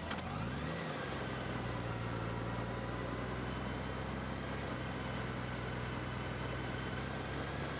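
Honda GL1800 Gold Wing's flat-six engine running steadily under way, a low hum that rises briefly in pitch about half a second in, over a steady hiss of wind and road noise.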